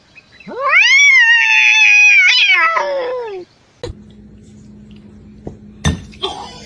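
A cat's single long, drawn-out meow that rises in pitch at the start, holds, and falls away at the end. It is followed by a low hum with two short knocks.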